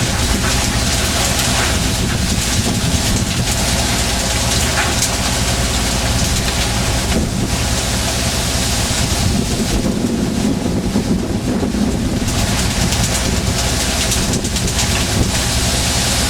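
A tuna fishing boat's diesel engine running steadily, with heavy wind and rushing sea water over it.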